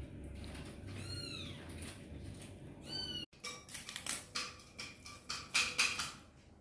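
Baby long-tailed (crab-eating) macaque giving two high-pitched calls, each rising then falling in pitch, about a second apart. Scattered soft clicks and taps follow.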